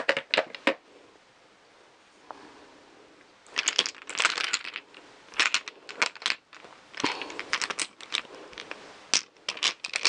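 Small glass nail polish bottles clinking and knocking against each other as a hand rummages through a heap of them. There are a few clinks at the start, a lull of about two seconds, then repeated bursts of clatter.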